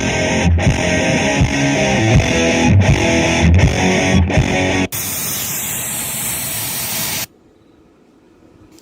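Rock music with distorted electric guitar and heavy bass, played back through a Sony SS-XB88V super woofer speaker system, stops abruptly about five seconds in. Steady hiss-like noise follows and cuts off suddenly about two seconds later, leaving faint room tone.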